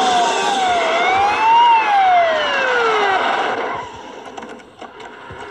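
Police car siren wailing: one slow rise in pitch, then a long fall that winds down and stops about three seconds in, over vehicle noise.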